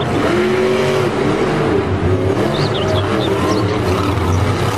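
Grave Digger monster truck's supercharged V8 engine running loud as the truck drives across the dirt arena floor.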